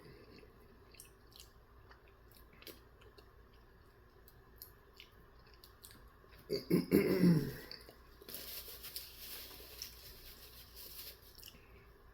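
A person chewing food close to the microphone, with small scattered mouth clicks, and one short louder vocal sound about seven seconds in.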